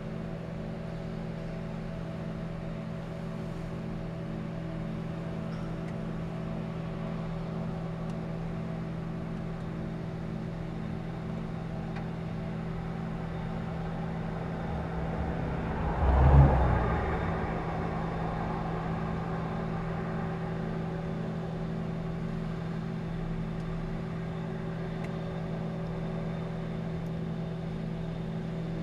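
Steady industrial hum from large engines at a plant running at full output: a droning note with several steady overtones over a low rumble, which a nearby resident calls true infrasound. About sixteen seconds in, a louder swell of noise rises and fades.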